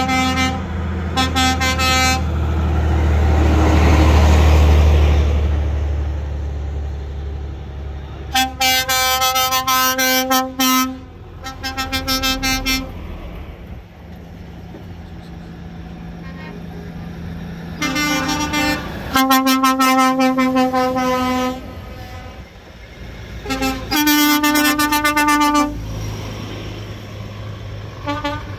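Old vehicles in a passing cavalcade sounding their horns: about six toots, some short and some held for two seconds or more. A loud engine rumble passes about four seconds in.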